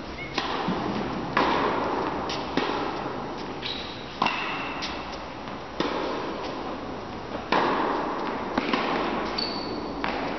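Tennis rally: the ball struck back and forth by rackets, about seven sharp hits a second or so apart, each echoing through a large indoor hall.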